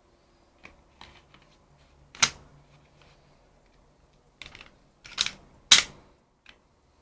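Airsoft gas pistol firing: one sharp shot about two seconds in, then two more in quick succession near the end, with fainter clicks of the pistol being handled in between.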